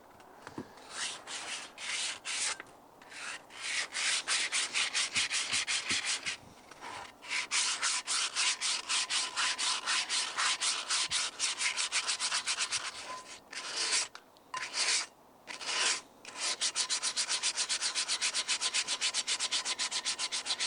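Coarse 60-grit sandpaper rubbed by hand over a rusted cast iron pan in quick back-and-forth strokes, several a second, stopping briefly a few times to take rust off the iron.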